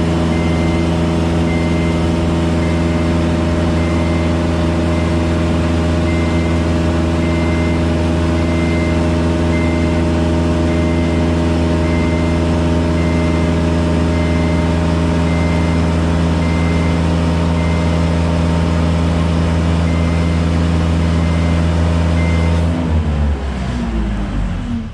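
Genie S-65 telescopic boom lift's engine running steadily with its motion alarm giving repeated short beeps as the turntable swings. Near the end the beeping stops and the engine shuts off, its pitch falling as it spins down.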